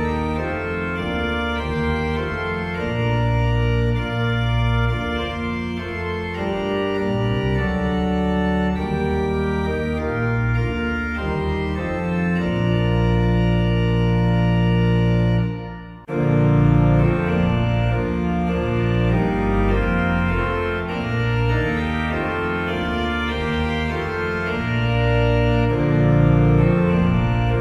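Background organ music playing held chords that change every second or two. It cuts out briefly a little past halfway, then starts again.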